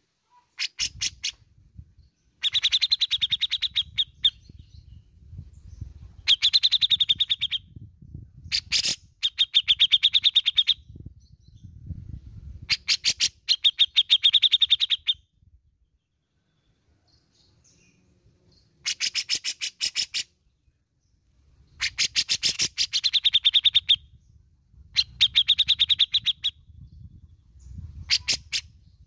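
Grey-cheeked bulbul (cucak jenggot) singing in repeated bursts of fast, rattling chatter, each a second or two long, with a pause of a few seconds about halfway through.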